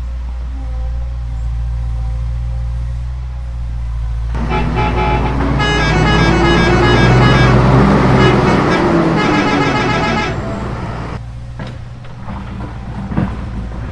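Steady low engine-like hum. About four seconds in, a loud multi-tone horn sounds a changing melody for about six seconds before cutting out.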